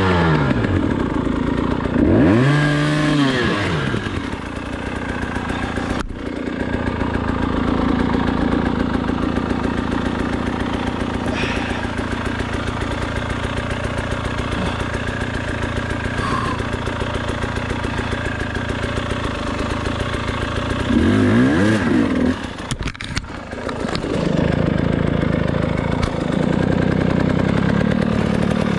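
KTM 300 XC-W two-stroke enduro engine, revved up and down in quick blips about two seconds in and again about twenty-one seconds in, running steadily in between. A couple of sharp knocks can be heard.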